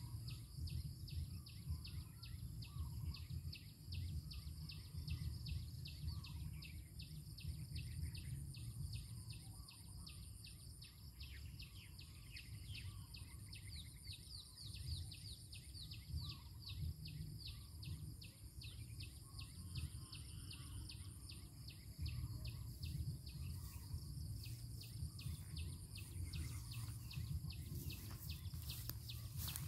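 Outdoor ambience of insects chirping in a fast, even pulse over a steady high insect whine, with scattered short bird calls and a low steady rumble. A few clicks near the end.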